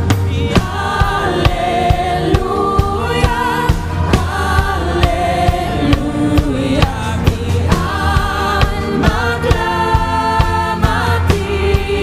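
Live Christian worship music: several singers holding long notes with vibrato over a drum kit keeping a steady beat, with a low bass underneath.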